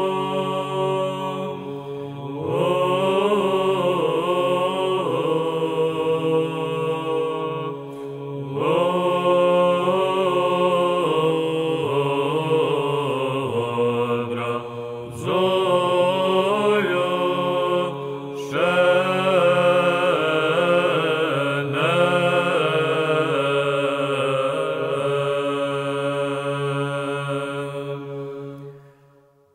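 Closing music: a slow, ornamented melody in phrases over a steady low drone, fading out at the end.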